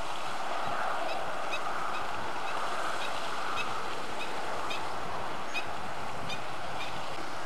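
A marsh bird calling over and over in short, sharp notes, about two a second, over a steady hiss.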